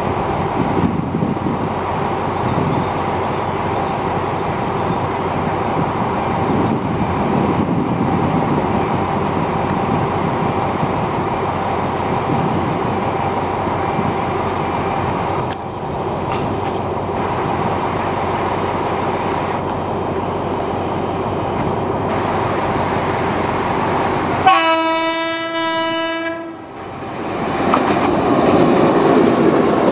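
Thai State Railway Alsthom diesel-electric locomotive 4133 approaching at the head of a passenger train, its engine and wheels giving a steady rumble. About 24 seconds in it sounds its horn in one steady blast of about a second and a half, then the engine and wheels grow louder as the locomotive passes close by near the end.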